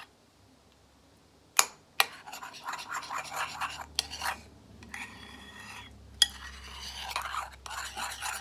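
Spoon stirring thick shampoo-and-salt slime in a ceramic bowl, starting about a second and a half in: a few sharp clinks against the bowl's side with scraping and rubbing between them.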